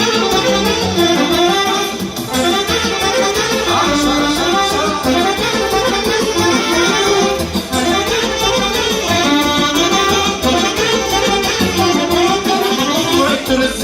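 Instrumental break of a Transylvanian folk song (ardeleană), with a busy melodic lead of many quick notes over a steady accompaniment and bass, without singing.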